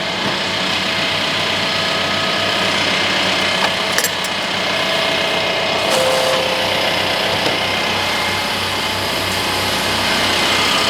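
Large TYM farm tractor's diesel engine running steadily under way, with an even low throb and a couple of sharp clicks about four seconds in.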